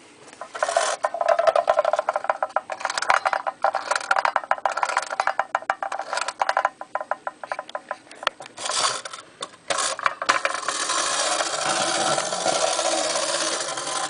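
Marx Dipsy-Doodle Bug Dodg'em wind-up tin toy car being wound, with rapid ratcheting clicks in spurts and short pauses. About ten seconds in, the released clockwork motor runs with a steady whir as the tin car moves around its tin tray.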